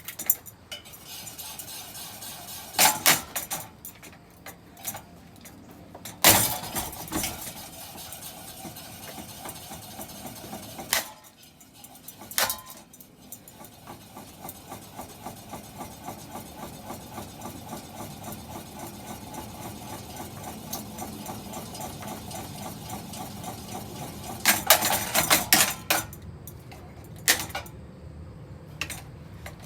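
A battered ceiling fan running and rattling steadily while it is hit several times with heavy tools: loud clanking strikes about 3 and 6 seconds in, another around 12 seconds, and a quick cluster of blows near the end. The running sound drops out for a moment about 11 seconds in.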